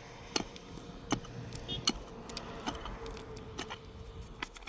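Sharp clinking strikes, about one every three-quarters of a second at first, then smaller and less regular, over a faint steady tone.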